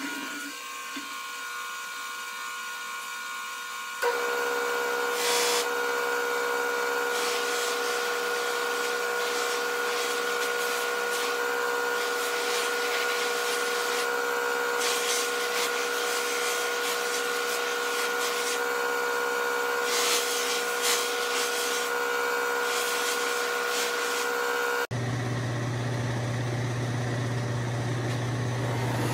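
Pedestal buffing machine running, its motor and spinning buffing wheel giving a steady hum and whine while a guitar body is buffed. The sound gets louder and steadier about four seconds in and changes to a deeper hum near the end.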